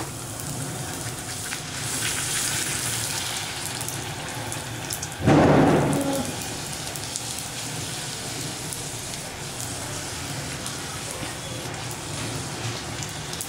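A chaat puri deep-frying in hot oil in a metal kadai: a steady crackling sizzle, with one loud burst about five seconds in as a slotted spoon presses and turns the puri in the oil.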